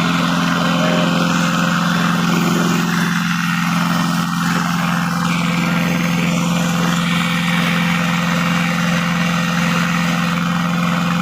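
Heavy automatic rock-drilling machine running steadily, with a loud constant engine hum.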